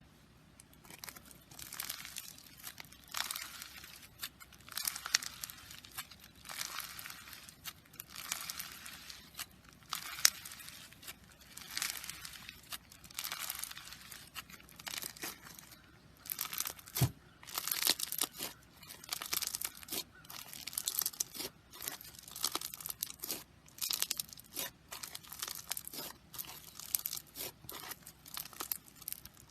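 Slime being squeezed and stretched by hand, crackling and popping in repeated bursts. The bursts come every second or two at first, then grow quicker and denser about halfway through.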